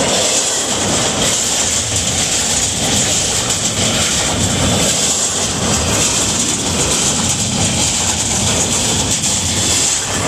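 Freight train's double-stack container well cars rolling past close by: a steady, loud rumble and rush of steel wheels on the rails.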